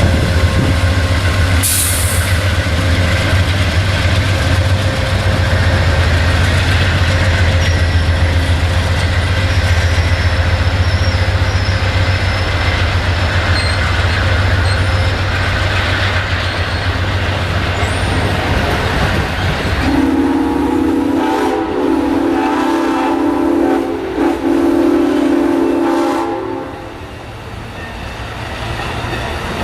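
Diesel train passing close with a deep, steady engine drone. About two-thirds of the way in, a train's air horn sounds a chord of several notes for about six seconds, then cuts off.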